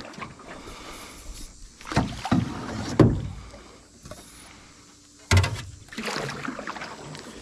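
Paddle strokes in the water beside a small boat, several separate splashing strokes a second or more apart.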